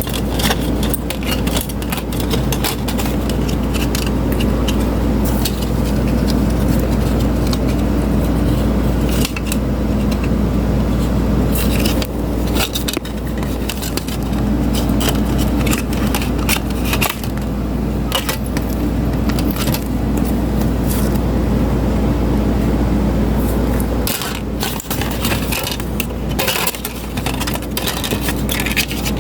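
Mini ceiling fan's small electric motor running with a steady hum, with frequent sharp clicks and rattles throughout.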